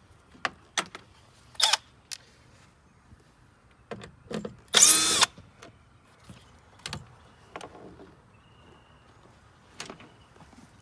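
Sharp plastic and metal clicks and knocks from handling the door speaker and its connector inside a Ford F-150 front door, with one loud half-second burst about five seconds in.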